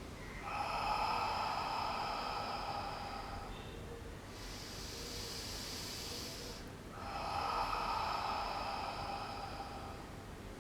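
Slow, deep pranayama breathing (relaxation breathing): a louder breath of about three seconds, a quieter one of about two and a half seconds, then another louder breath of about three seconds.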